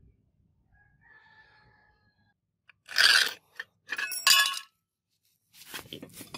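Steel cleaver blade and a thin metal template plate scraping and clattering on concrete as they are handled: a loud scrape about three seconds in, a longer clatter with a metallic ring about a second later, and another scrape near the end.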